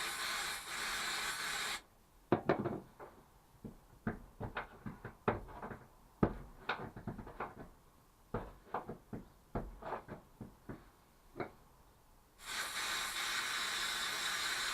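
Aerosol freeze spray hissing steadily, cutting off about two seconds in. Then about ten seconds of irregular sharp knocks and taps as a chisel chips at the frozen sound-deadening pad in the car's footwell. The spray hiss starts again near the end.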